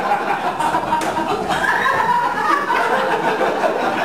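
Comedy-club audience laughing and chuckling at a stand-up's joke.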